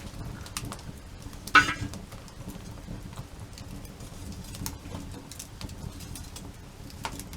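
Wood campfire crackling with scattered sharp snaps, one loud pop about one and a half seconds in.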